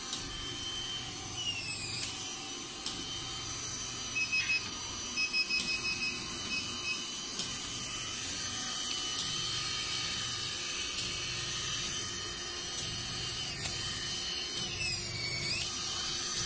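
Vacuum roller body-contouring machine running: a steady electric hum with a high whine, a run of short high pulses about four to six seconds in, and two brief falling whines, one near the start and one near the end.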